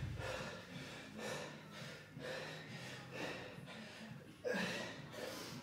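A man breathing hard and fast from exertion, in short noisy breaths roughly once a second, with one louder breath about four and a half seconds in.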